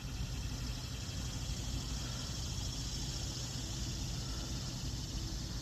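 Steady chorus of insects, a high buzzing, over a constant low rumble.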